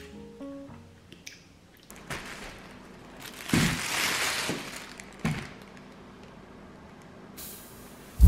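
Thin plastic bag holding potatoes rustles and crinkles for about a second near the middle as it is handled and set down, with a dull knock. A couple of lighter knocks follow.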